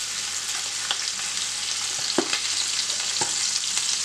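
Sausage pieces and smoked pork (boucané) frying in oil in a pot: a steady high sizzle with a few sharp crackles spread through it.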